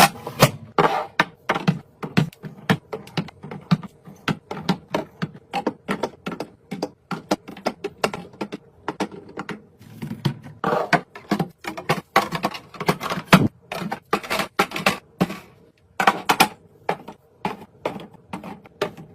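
Irregular clicks, taps and knocks of food containers and packaging being handled and set down, several a second, with brief rustling in between.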